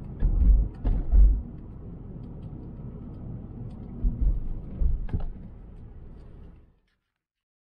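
Car driving on a road, heard from inside the cabin: a steady low rumble broken by four deep thumps, cutting off suddenly near the end.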